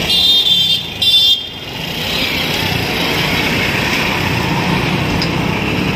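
Road traffic: two short horn honks near the start, then a goods truck passing close by, its engine and tyre noise building and then holding steady.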